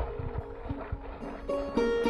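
Background instrumental music: a string melody with sliding notes. It is softer at first and swells again about one and a half seconds in.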